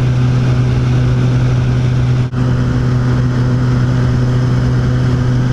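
Small propeller plane's engine droning steadily as heard inside the cabin during the climb, with a brief dropout a little over two seconds in.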